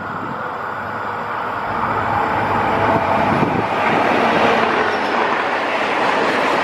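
Freight train approaching and passing close by: the diesel locomotive's engine and wheel noise grows louder over the first two seconds, then the steady rumble of loaded container wagons rolling past on the rails.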